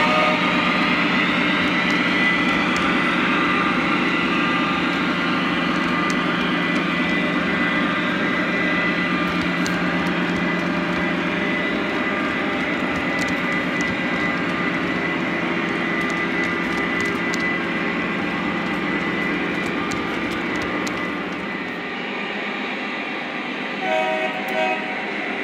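A Lionel Legacy O-gauge model freight train rolling past on three-rail track: a steady running rumble of wheels and motors with a thin steady whine, fading slightly as the train moves away. Near the end the locomotive's sound system gives two short horn toots.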